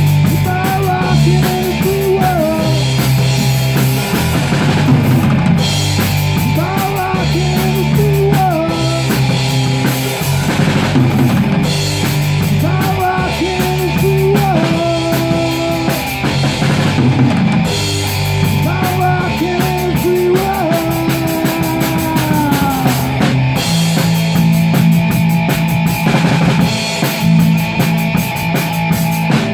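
Live rock power trio playing: drum kit, electric bass and electric guitar, with the guitar playing phrases of bent notes over the drums and bass and no vocals.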